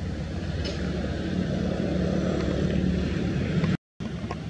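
Low, steady engine rumble of a motor vehicle, growing louder over the first few seconds and cutting out for a moment near the end.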